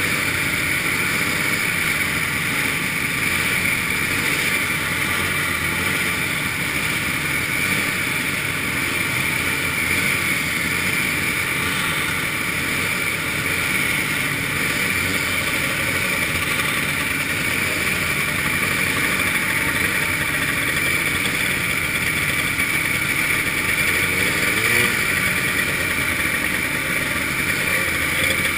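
Two-stroke engines of a line of vintage snowmobiles idling and running slowly together, the rider's own machine closest, a steady mechanical drone that swells slightly near the end.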